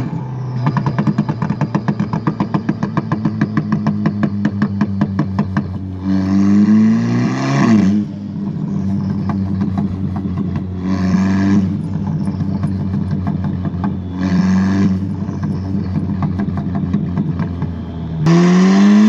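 Audi S3 8V's turbocharged 2.0-litre four-cylinder with its exhaust valve open, driven hard. It starts with a rapid, even string of pops and crackles on the overrun, the gurgle of a freshly written pops-and-bangs map. Then come four loud bursts of throttle, each with the engine note rising.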